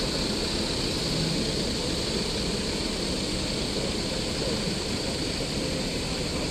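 Military trucks driving slowly past, their engines running steadily, over a continuous high hiss.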